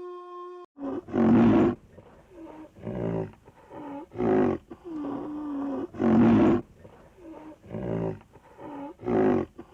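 A long howl fades out within the first second. Then a tiger roars again and again, a loud call every second or two with softer moaning calls in between.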